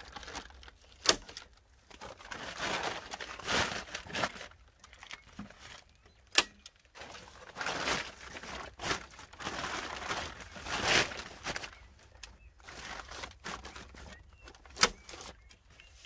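Plastic sheeting crinkling as it is pressed against wooden pallet boards, punctuated by three sharp snaps of a hand staple gun driving staples into the wood.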